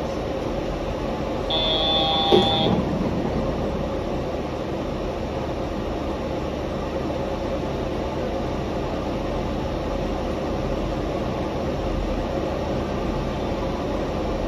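Yurikamome rubber-tyred automated train running, a steady running noise with a steady hum. About a second and a half in, a brief high tone sounds for about a second, with a short knock in the middle of it.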